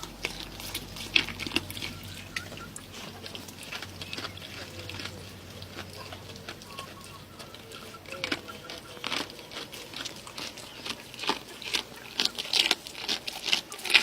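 A goat chewing a fish: irregular sharp clicks and crunches, sparse at first and coming thicker in the last few seconds.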